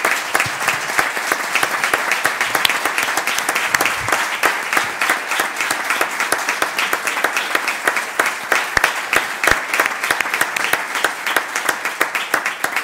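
Audience applauding: steady, dense hand-clapping from a roomful of people.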